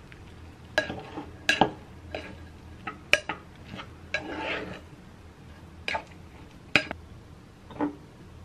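Dishes and cutlery clinking and knocking in a kitchen: about eight sharp clinks spread irregularly over several seconds, with a short scraping, rustling stretch near the middle.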